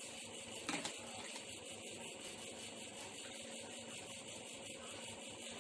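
Faint steady background hum and hiss, with one brief soft knock about three-quarters of a second in.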